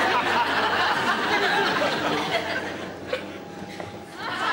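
Studio audience laughing, dying away over about three seconds, then a fresh burst of laughter near the end.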